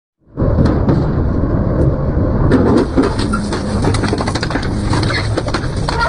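Double-shaft metal shredder chewing through metal: dense crunching and cracking over a heavy low rumble. It cuts in abruptly about a third of a second in, after a brief silence.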